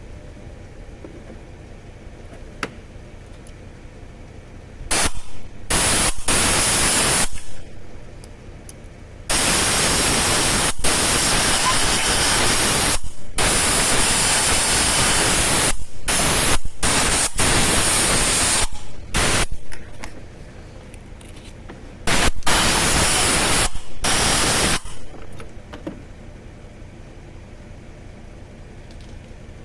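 Loud hiss of pressurised gas let out in several bursts: a short one about five seconds in, a long one of about ten seconds with brief breaks, and another of about three seconds near the end.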